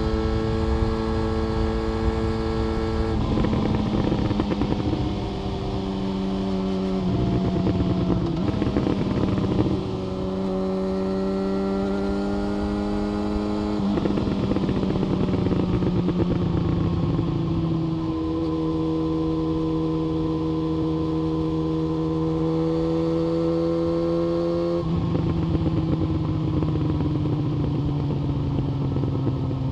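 Yamaha FZ1 Fazer's inline-four engine running through an SC-Project exhaust while riding, holding steady revs, with several sudden drops in pitch and a slow climb between about ten and fourteen seconds in.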